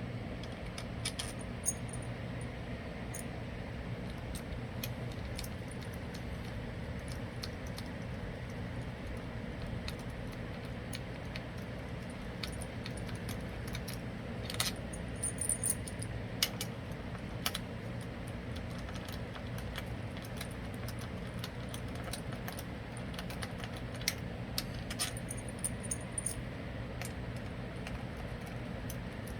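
Small metal clinks and clicks, bunched into a few short flurries, as the engine side-case bolts and hand tools are handled, over a steady low hum.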